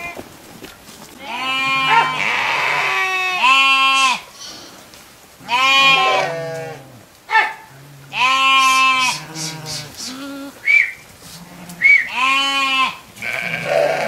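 Sheep bleating repeatedly, about five loud, drawn-out bleats of roughly a second each, with a couple of short, higher cries in between.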